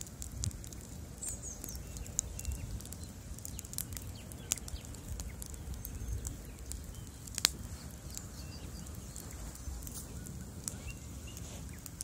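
Large bonfire of stacked wood crackling and popping over a low, steady rumble of flames, with one loud pop about seven and a half seconds in.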